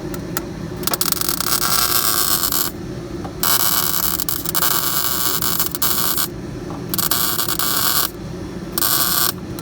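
Welder arcing in four bursts of steady crackle, the longest about three seconds, plug-welding the car's floor pan to the frame rail through drilled holes.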